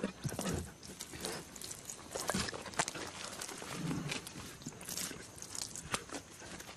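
A few short, low grunts from lions among irregular crunching and rustling.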